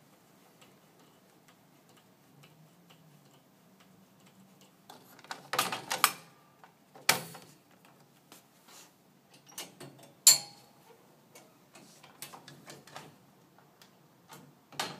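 A series of sharp plastic-and-metal clicks and clacks from a pressure-mounted pet gate as the latch handle on its swing door is worked and the door is opened. The clicks come in scattered ones and pairs after a quiet first few seconds, and the sharpest is about ten seconds in.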